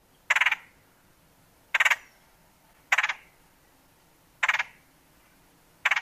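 Red-headed woodpecker's rattle call: five short, harsh churring notes repeated about every one and a half seconds.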